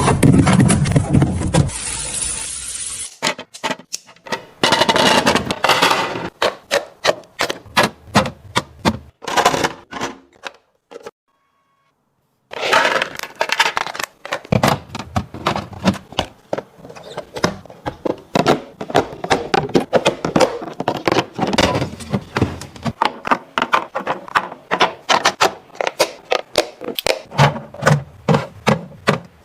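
Plastic fridge organizer bins and bottles being handled, set down and slid into place: a rapid, irregular run of clicks, knocks and scrapes, broken by a short silence about eleven seconds in.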